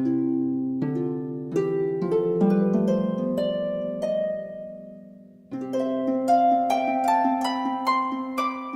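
Background music of plucked harp-like notes over sustained chords, with a new chord about five and a half seconds in followed by rising plucked notes.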